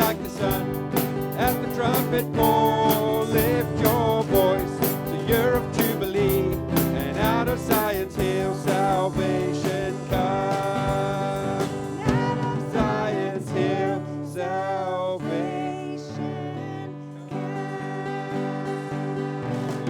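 Live church worship band playing, with drum hits through the first half, then held chords that thin out and die away near the end.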